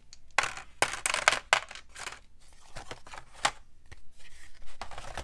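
Dice clicking and rattling together in a hand for about two seconds, then a few scattered sharp taps and light handling noises as game pieces and cardboard boards are moved.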